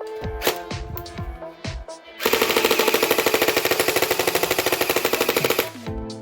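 Background music, then about two seconds in a toy gun's electronic machine-gun sound effect fires a rapid rattle of shots for about three and a half seconds, louder than the music, before cutting off.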